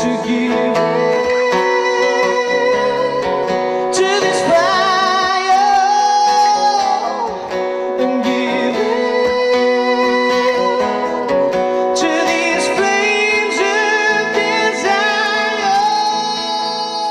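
Acoustic guitar strummed with a man singing along at the microphone, a live solo song.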